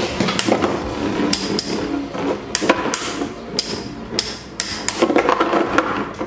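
Two Infinity Nado metal-rimmed spinning tops battling in a plastic stadium. They clash again and again with sharp metallic clacks, a dozen or so at irregular spacing, over the scraping hiss of the tops spinning on the plastic.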